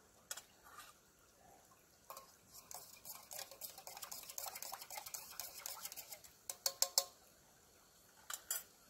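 A utensil scraping and clinking against a metal camp cup of coffee. A run of light rattling and scraping is followed by a few sharper metallic clinks about two-thirds of the way through and a couple more near the end.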